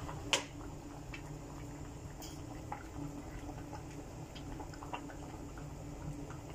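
Pot of vegetables and shrimp boiling in broth: steady bubbling with scattered small pops. One sharp click just after the start is the loudest sound.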